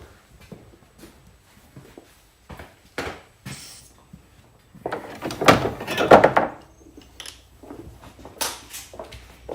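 Scattered clicks and knocks of hand tools and metal parts being handled in a car's engine bay, with a louder run of clatter about five to six and a half seconds in.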